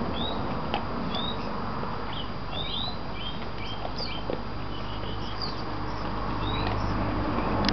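Small birds chirping, many short high chirps scattered throughout, over a steady low rumble, with a few faint clicks.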